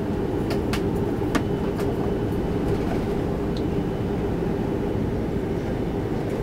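Steady rumble of an Airbus A330-300 airliner's cabin, engine and airflow noise, with a few light rattling clicks in the first couple of seconds.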